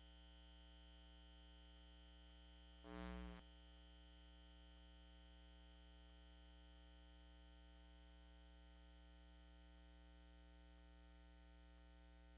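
Near silence with a faint, steady electrical hum from the sound system. About three seconds in there is one brief, louder burst of buzzing hum lasting about half a second, which cuts off suddenly.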